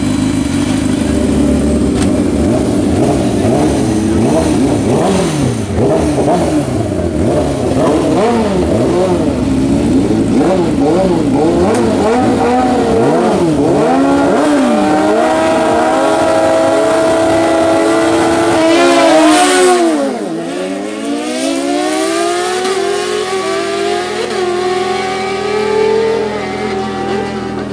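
Superbike engines revving, throttles blipped up and down again and again, then held at high revs. About twenty seconds in, the loudest moment, the note dips sharply and climbs again as a bike launches. The note then keeps rising as it pulls away and grows quieter.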